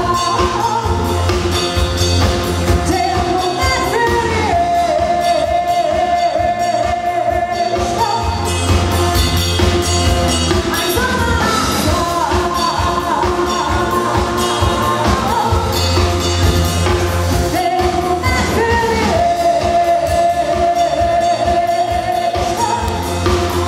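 Live rock band: a woman singing, with long held notes that recur every few seconds, over electric bass and drum kit.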